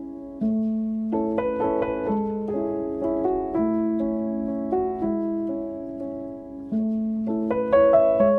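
Slow instrumental background music led by piano: sustained chords, with a new chord and bass note about every second and a half, each one swelling in and then fading.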